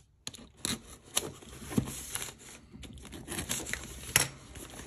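A sealed cardboard shipping box being cut and torn open by hand along its taped seam: irregular scrapes, rips and taps of tape and cardboard.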